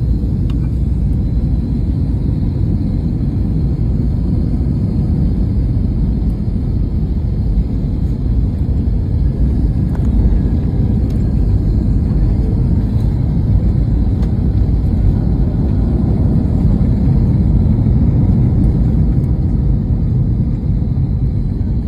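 Airliner cabin noise heard from inside the cabin: a steady, loud low rumble of the jet, swelling slightly toward the end.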